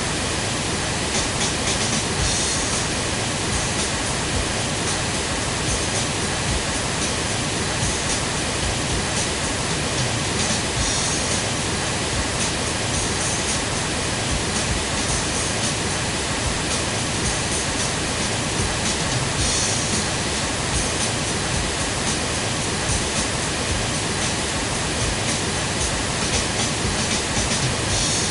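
Steady pink noise test signal, with a recorded drum kit playing underneath it as contamination of the measurement. Now and then brief brighter hiss comes through the noise.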